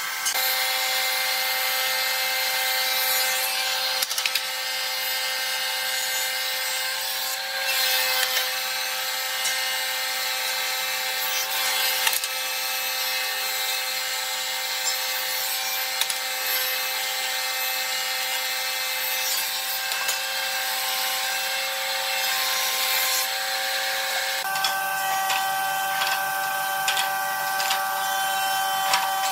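Industrial thickness planer running with a steady whine over the hiss of a pine board being planed. Near the end the sound changes to a different steady hum with a run of light wooden taps and clicks as boards are handled.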